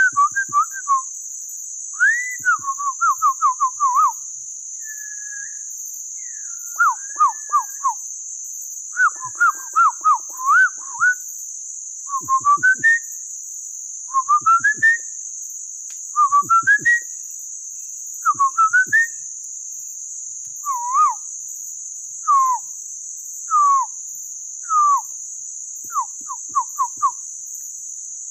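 Person whistling bird-like calls by mouth to lure birds: short phrases of quick slurred notes, some rising and some falling, repeated with pauses. A steady high insect drone runs underneath.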